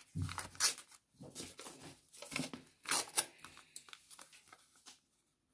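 A handmade squared-notebook-paper packet being torn open and handled: a run of short paper tearing and rustling crackles that die away about five seconds in.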